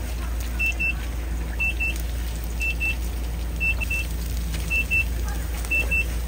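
Electronic alarm beeping in pairs: two short high beeps, repeating about once a second, over a steady low hum.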